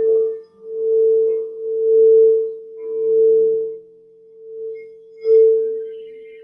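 A singing bowl rubbed around its rim, its one steady ringing tone swelling and fading about once a second; a little after five seconds in it is struck once and rings on, slowly fading.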